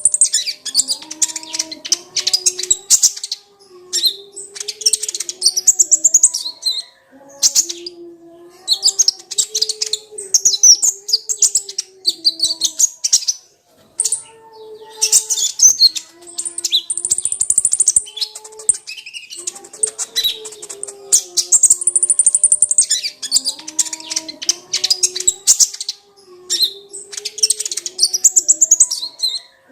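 Kolibri ninja (konin), a sunbird, singing a fast, high twittering song in loud phrases of one to three seconds with short pauses between them. Fainter wavering lower tones run underneath.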